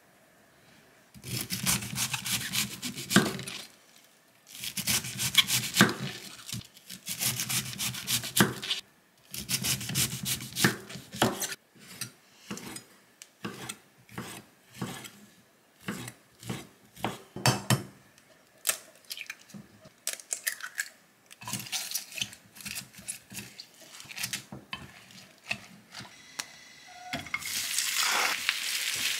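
Kitchen knife cutting on a wooden cutting board: several runs of fast cutting, then separate chops as sliced ham is cut. Near the end, an egg batter is poured into a frying pan with a rising hiss.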